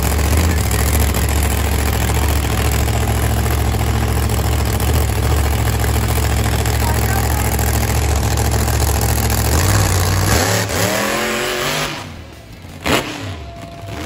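Monster truck engine running loud and steady, then revving up and down before falling away about twelve seconds in. A single sharp knock follows shortly after.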